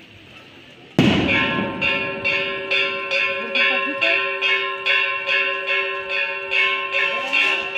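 Church bells ringing a rapid peal, starting suddenly about a second in. The strikes come two to three times a second, with several tones ringing on beneath them.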